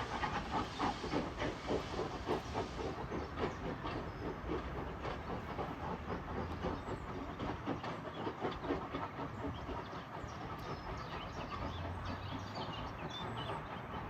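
Steam train running: a quick, even rhythm of beats over steam hiss, the beats fading away about halfway through and leaving a steady rumble.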